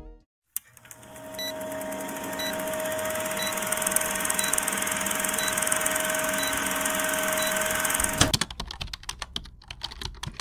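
Vintage film countdown sound effect: a steady film-projector whir with a held hum and a faint tick about once a second, stopping abruptly about eight seconds in. Then a fast run of typing clicks.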